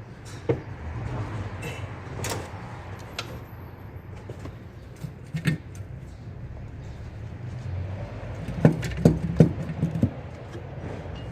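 Scattered metallic clicks and knocks of hand tools and engine parts as the intake manifold is worked loose and lifted from the V8, with a quick run of four or five louder knocks about nine seconds in.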